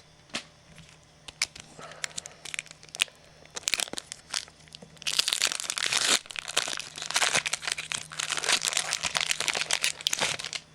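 A trading-card pack wrapper being torn open and crinkled by hand. Scattered light clicks and rustles come first, then dense crinkling in two long stretches from about halfway through.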